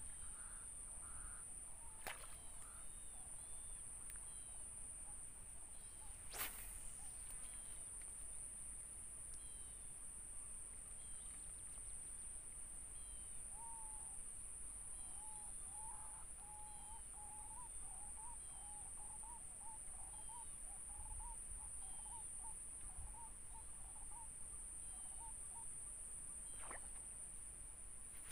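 Swamp ambience: a steady high-pitched insect drone with scattered short bird chirps, and a lower call repeated rapidly through the middle. A few brief sharp sounds are heard, the loudest about six seconds in.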